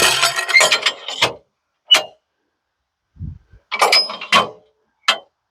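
Irregular metallic clanks and knocks from the bandsaw mill's log clamp and dogs as the squared log is locked in place. There is a clatter of knocks at the start, a few single knocks and dull thuds, another clatter about four seconds in, and one last click.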